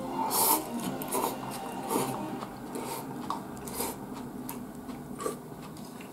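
Close-up eating sounds: miso soup with enoki mushrooms sipped from the bowl and chewed, with short sharp wet slurps and mouth noises about half a second, one, two, four and five seconds in.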